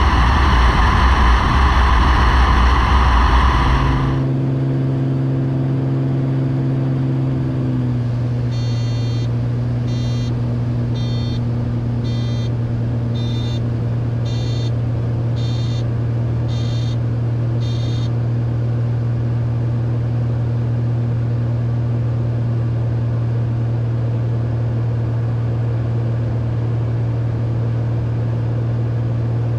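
Loud wind and engine noise of a Beechcraft Bonanza in flight, heard from a camera out on the wing, cutting off suddenly about four seconds in to the steady drone of the engine inside the cockpit. In the middle, a short electronic alert beeps about once a second, roughly ten times.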